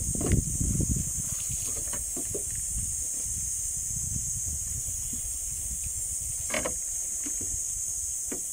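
Steady high hiss with low wind rumble on the microphone, and a few brief rustles and clicks of plastic packaging being handled. The loudest come in the first second, with another short one about six and a half seconds in.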